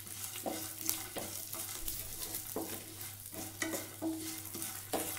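A wooden spatula stirring and scraping a tempering of dal, peanuts and cashews in a nonstick frying pan, with light sizzling of the oil, in a quick irregular series of strokes. The dal is being roasted until it turns reddish.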